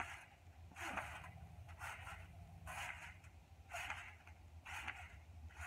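Trampoline being bounced on: a soft swish from the mat and springs about once a second, with a steady low hum underneath.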